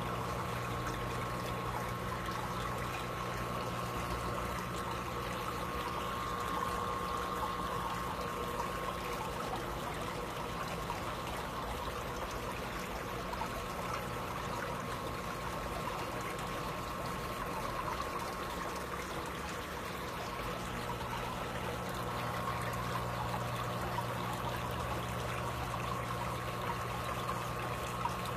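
Steady trickle of water running into an aquarium, over a low steady hum from the tank's filter pump.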